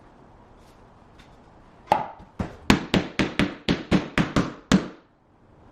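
A quick series of about ten sharp knocks, about four a second, starting about two seconds in: a vinyl click-lock plank being tapped into its neighbour to lock the joint.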